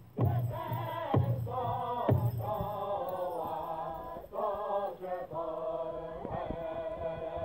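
Powwow drum song: a group of male singers chanting high in unison over a big drum. Heavy drum beats fall about a second apart at first, then the singing carries on over lighter strikes.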